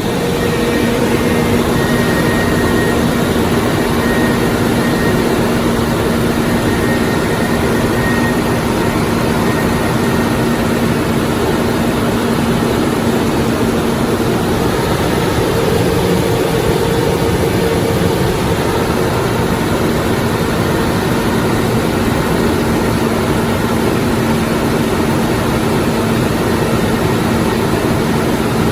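Loud, steady mechanical drone with a constant low hum and its overtone running through it, unchanging throughout.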